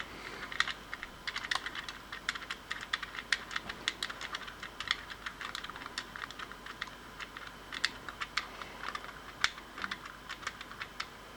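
Many small, irregular clicks from the time-setting knob of a battery-powered analog alarm clock being turned to move the hands.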